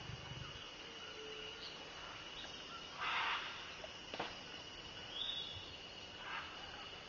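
A steady high insect drone, with one short, harsh scarlet macaw squawk about three seconds in. A sharp click follows a second later, and a few fainter short calls come after that.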